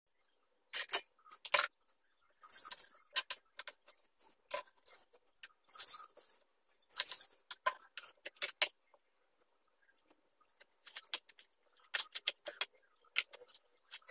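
Bunch of fresh coriander rustling as hands trim and sort the stems on a wooden chopping board, in irregular short bursts with a quieter pause around the middle.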